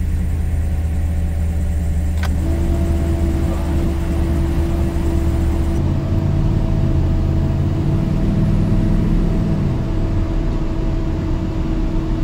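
Turbocharged big-cam engine of an S10 pickup running, heard from inside the cab. About two seconds in there is a click and a steady whine joins the engine; later the engine pitch rises as the truck accelerates, then falls as it lets off.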